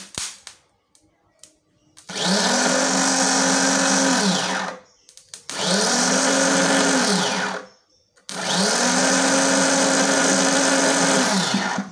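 Peugeot 406 starter motor run on the bench straight off a car battery, three times. Each time it spins up quickly to a steady high whine for two to three seconds, then winds down. A few short clicks come just before the first run.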